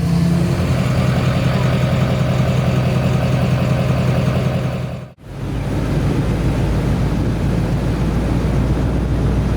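A motor vehicle's steady, low engine and road drone, broken by a sudden cut about five seconds in, after which a similar drone carries on.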